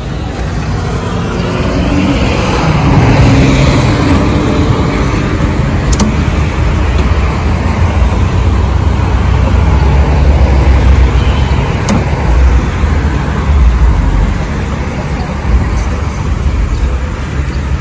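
Motor-vehicle noise: a steady low engine-and-road rumble that grows louder about two seconds in and stays loud.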